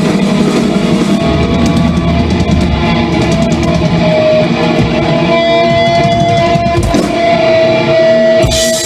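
Live heavy rock band playing: distorted electric guitars holding long ringing notes over the band, with a sudden bright wash of sound near the end.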